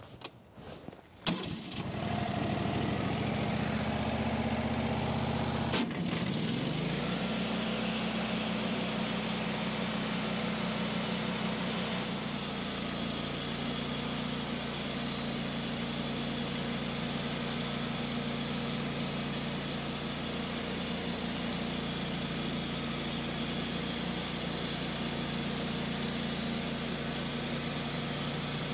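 The engine of a Wood-Mizer LT15 Wide portable bandsaw mill starting about a second in and running. About six seconds in, a short knock comes as its note changes, and it then runs steadily on.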